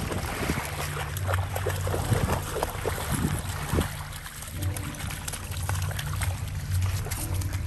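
A dog wading through shallow water, its paws making repeated small splashes at an uneven pace over a steady low rumble.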